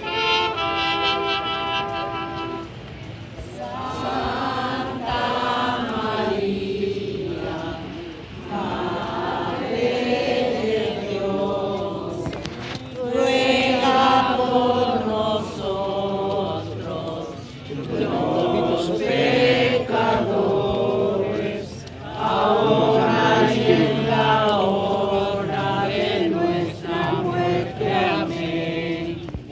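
A crowd of people singing a religious hymn together, phrase after phrase with short breaks between.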